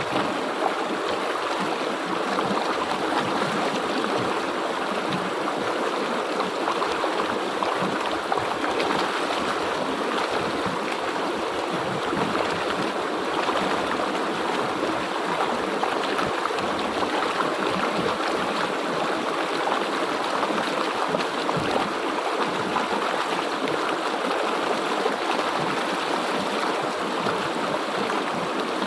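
A river stream flowing and babbling over rocks, a steady rushing and gurgling of water.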